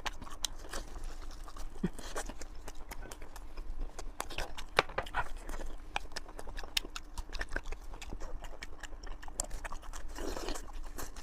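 Close-miked mouth sounds of someone eating sausage and pork intestine: irregular wet clicks and smacks of chewing, several a second.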